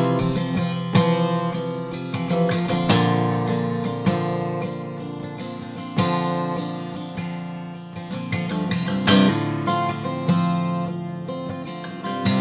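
Solo acoustic guitar instrumental, with picked notes and chords left ringing. Harder strummed chords stand out about one, three, six and nine seconds in.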